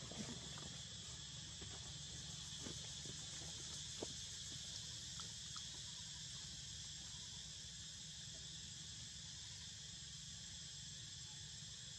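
Steady high-pitched chorus of insects, a continuous shrill drone, with a few faint soft clicks in the first few seconds.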